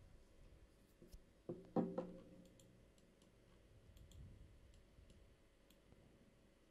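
Faint computer mouse clicks over quiet room tone, with one brief, louder low sound a little under two seconds in.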